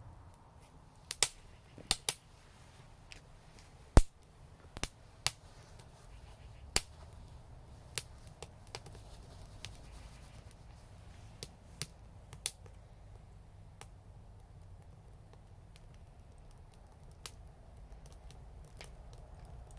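Wood fire crackling: irregular sharp pops and snaps, the loudest about four seconds in, over a low steady rumble.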